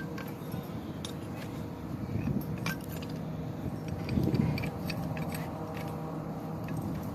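Scattered light metallic clinks and jingles over a steady low hum, with a couple of louder dull bumps.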